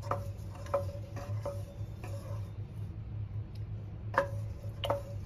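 Wooden spatula stirring thick, creamy dal in a metal pressure-cooker pot, knocking against the pot with a light ring. Several knocks come in the first two seconds, then a pause, then two louder knocks near the end.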